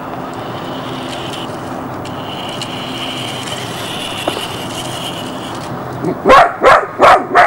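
Radio-controlled toy car's electric motor whining, with a short gap early on, then cutting out. Right after, a Border Collie puppy barks several times in quick succession near the end, loud and sharp.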